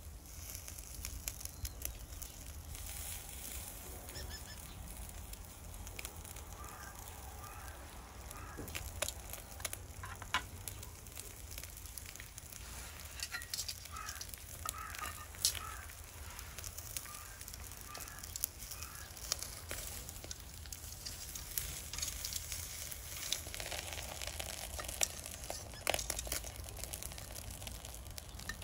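Miso-marinated fish sizzling and crackling on a wire grill over charcoal in a shichirin, with a few light pats on the fish and short squeaks in the middle.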